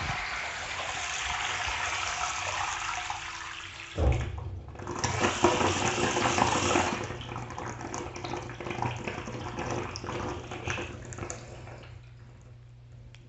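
Hot water pouring into a bathtub from a Noritz gas water heater's automatic bath fill. About four seconds in the flow turns suddenly louder, with a steady low hum under it, then it gradually dies down over the last few seconds.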